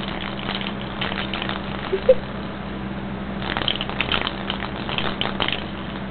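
A kitten batting and pawing at a hand-held toy on bedding: bursts of light rustling and scratching, one stretch at the start and another past the middle, with a brief short sound about two seconds in.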